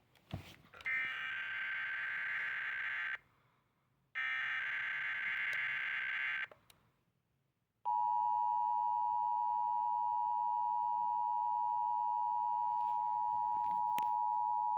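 Emergency Alert System weekly-test signal on NOAA Weather Radio: two bursts of shrill, warbling digital SAME header data, each about two seconds long, then after a short pause a steady warning alarm tone starting about eight seconds in and holding.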